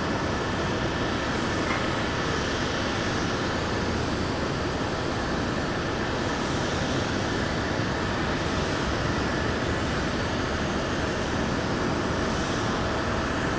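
Jet engines of a Boeing 747 Dreamlifter cargo plane running at a distance: a steady, even rumble and hiss with a faint steady whine.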